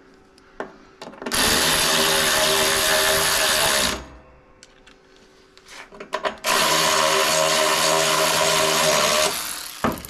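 Cordless power tool driving in the half-inch bolts of a riding mower's rear support bracket: two runs of under three seconds each, a few seconds apart, each a steady whine.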